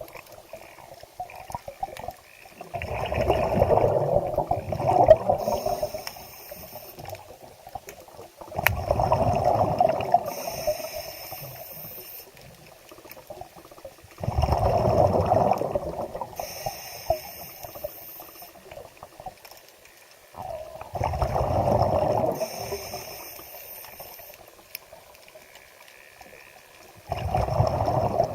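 Water gurgling and bubbling in regular surges about every six seconds, each lasting two to three seconds, with a short high hiss between surges.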